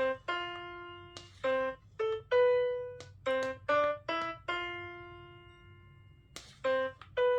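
Piano notes from a Caterpillar talking reading pen tapped on a printed piano card, about a dozen single notes of different pitches, each starting sharply and fading. The card sounds one note only where the pen taps and cannot give a continuous run from a sweep.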